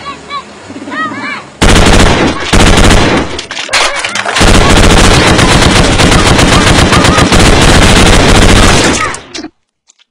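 Loud, rapid machine-gun fire, almost certainly a dubbed-in sound effect since the guns are sticks. It starts about a second and a half in, breaks off briefly near the middle, then runs as one long burst before cutting off suddenly near the end. A few short whistles come before it.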